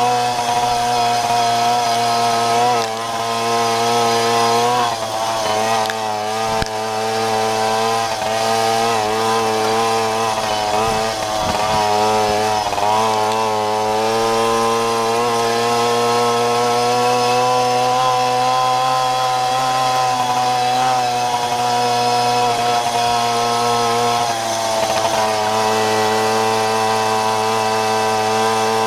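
Jawa Babetta moped's single-cylinder two-stroke engine running continuously. Its pitch wavers up and down with the throttle through the first half, then holds mostly steady.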